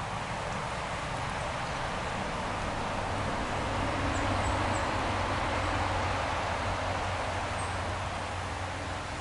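A road vehicle passing, its engine and tyre noise swelling to a peak around the middle and slowly fading, with a few faint bird chirps.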